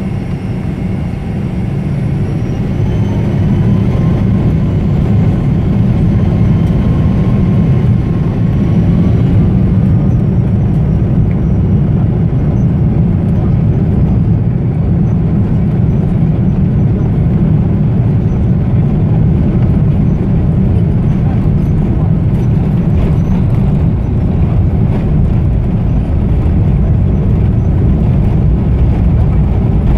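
Boeing 777-300 jet engines at take-off thrust heard from inside the cabin during the take-off roll: a loud, steady, deep rumble that grows over the first few seconds, with a faint whine rising in pitch over about the first ten seconds.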